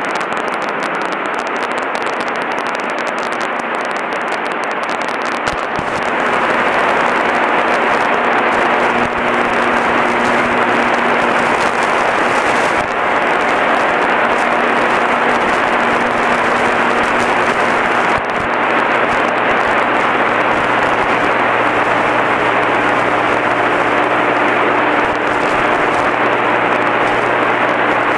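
Engine and propeller of a Grumman single-engine light airplane heard from inside the cabin in flight: a steady drone that gets louder about six seconds in.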